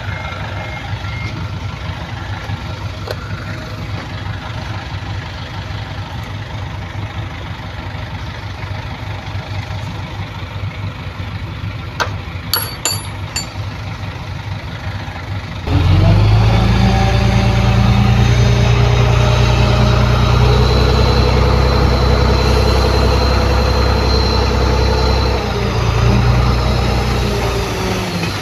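Heavy diesel engine of earthmoving equipment running steadily, with a few sharp metallic clicks just before midway. About halfway through, a louder, deeper engine note comes in suddenly and holds under load, then eases off near the end.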